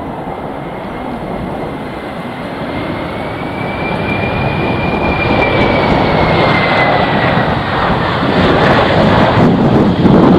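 Jet airliner passing close, a high engine whine rising slightly and then falling in pitch through the middle, over engine noise that grows steadily louder.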